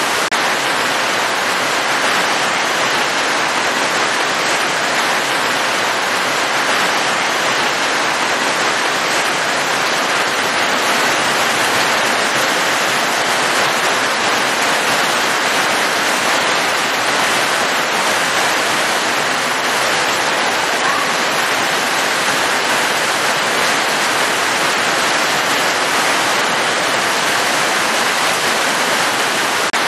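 Heavy rain falling steadily: an even hiss of a downpour with no single drops or thunder standing out.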